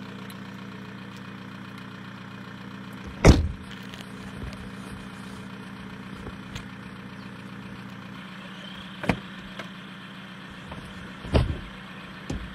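Car engine idling steadily. A car door slams shut about three seconds in, with smaller knocks and a thud later on.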